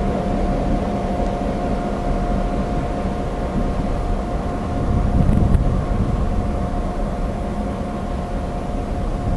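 Diesel locomotive engine running under load as it hauls a freight train: a steady low rumble with a constant whine, swelling slightly about halfway through.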